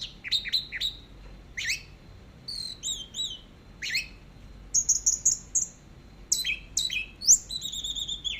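Orange-headed thrush singing a varied song of quick whistled phrases, sharp down-sweeping notes and short rapid trills, with brief pauses between phrases.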